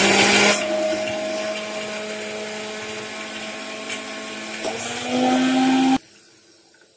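Electric mixer grinder with a steel jar running, grinding garlic cloves and ginger: a steady motor whine that eases off about half a second in, rises louder and a little higher near the end, then cuts off suddenly about six seconds in.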